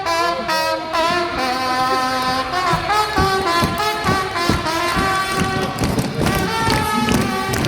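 Upbeat brass band music, horns playing a moving melody over drum beats.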